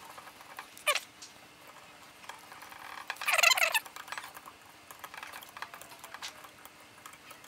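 Small metal clicks and clinks of a hex wrench and small bolts being worked into a gimbal cage frame. One sharp click comes about a second in, and a short rattle of clinks, the loudest part, comes around three and a half seconds in, with light ticks between.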